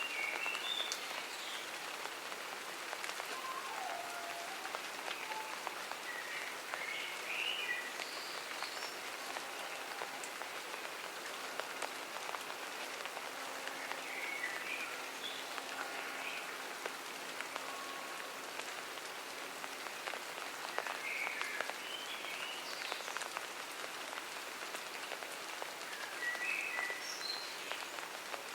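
Steady rain falling on a garden, an even hiss of drops. A bird sings short chirping phrases every few seconds above it.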